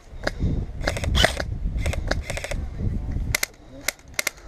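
Airsoft guns firing scattered sharp shots, with a few quick pairs near the end, over a low rumble on the microphone that dies away about three seconds in.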